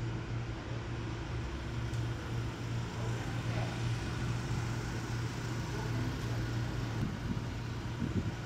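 Steady car and traffic noise: a low engine hum under an even hiss of road sound.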